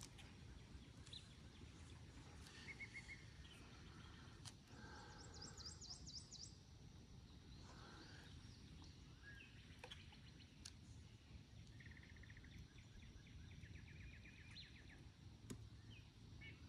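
Near silence with faint birdsong: scattered chirps and several quick trills from small birds over a low, steady background rumble, with a few faint clicks.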